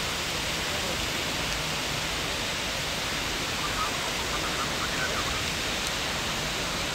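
Steady rushing and splashing of a large water fountain's spray, with faint voices about four seconds in.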